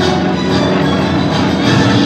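Music playing loudly.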